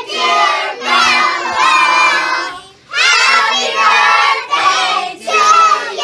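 A group of children, with a few adult voices among them, singing a birthday song together to a cake with a lit candle. The singing breaks off briefly a little before halfway through, then goes on.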